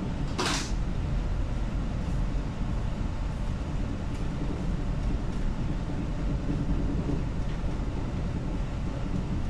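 Steady low rumble and rushing noise of a cargo ship under way in a rough sea, with a short hiss about half a second in.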